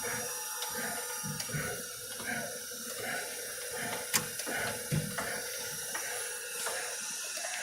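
Kent SGS-1020AH automatic hydraulic surface grinder running under power, with a steady hum and hiss and uneven low surges, and a sharp click about four seconds in.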